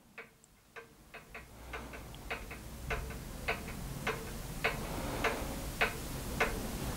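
Steady clock-like ticking, a little under two ticks a second, with a faint low hum coming in underneath.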